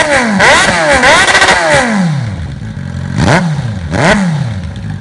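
Suzuki Bandit 650's inline-four revving loudly through a Hurricane aftermarket exhaust tip, with its small removable baffle still fitted. The throttle is blipped in quick revs, three in the first half, then it drops back toward idle and gives two more sharp revs.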